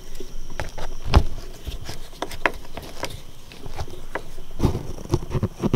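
Irregular clicks, knocks and light rattles of a loose seat headrest and its metal mounting being handled and worked with a hand tool, with a sharper knock about a second in.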